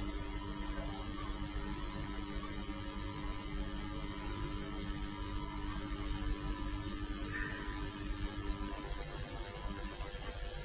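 Steady low background hum with a few faint steady tones; one of the tones drops out near the end.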